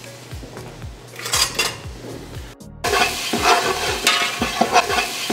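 A spoon stirring diced onion and jalapeño sautéing in melted butter in a metal stockpot: repeated scraping strokes against the pot over a sizzle. It is quieter at first and becomes loud after a brief drop-out about three seconds in.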